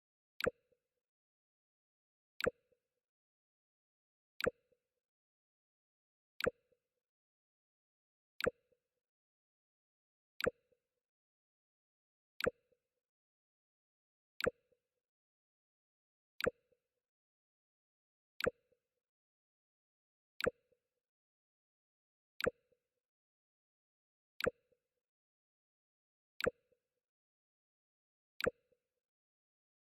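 The Mac OS X 'Jump' alert sound, a short sharp pop with a brief low tone, repeated every two seconds.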